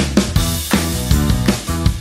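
Instrumental background music with a quick, steady beat.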